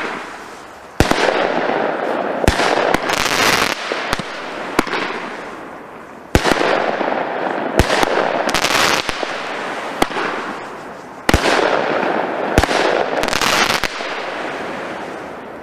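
Weco Jackpot 10-shot firework cake firing shot after shot, about every one to two seconds. Each sharp launch bang is followed by a second or so of dense crackling as the blinking stars burn out in the air.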